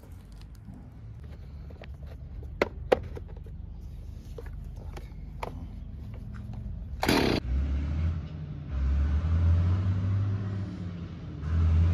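Petrol chainsaw: a few light metallic clicks as it is handled, then it is pull-started about seven seconds in and the two-stroke engine catches and runs, its speed dipping and picking up again twice.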